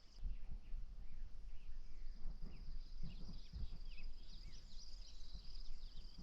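Outdoor ambience of insects trilling steadily at a high pitch, with scattered short bird chirps and a low rumble underneath.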